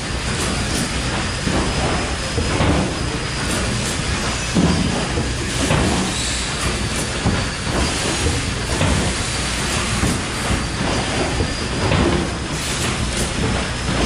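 SPMC inline six-corner tray former running, forming corrugated trays at about 20 a minute. It makes a steady mechanical clatter with short knocks and clacks repeating throughout.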